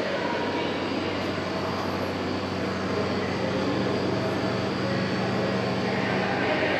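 Steady rushing noise with a low, even hum, typical of indoor machinery such as ventilation fans and refrigeration.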